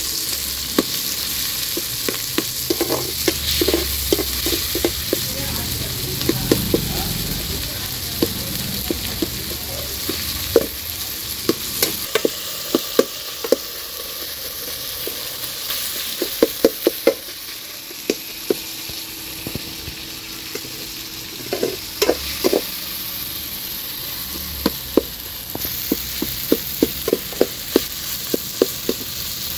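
Chopped onions, garlic and tomatoes sizzling in a metal pot while a slotted metal spatula stirs them, scraping and clicking against the pot in quick runs. There is a quieter spell about two-thirds of the way through.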